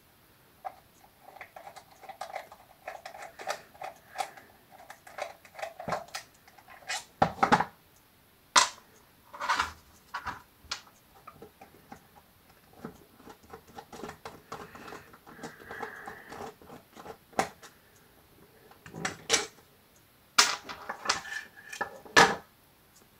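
A screwdriver turns out the screws of a Cerberus Guinard SIR-24-FC fire-siren's plastic case, with scratchy squeaking as the screws turn and scattered clicks and knocks of the case being handled. A cluster of louder clicks near the end comes as the case is pulled apart.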